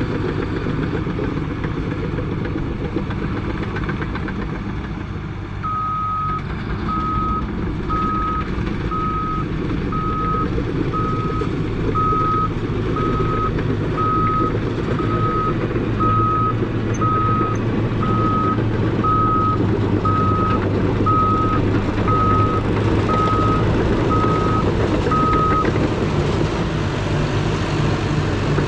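CAT D5 crawler dozer's diesel engine running steadily under load as the machine works. From about six seconds in until shortly before the end, its reverse alarm beeps at a steady pace of about one beep a second as the dozer backs up.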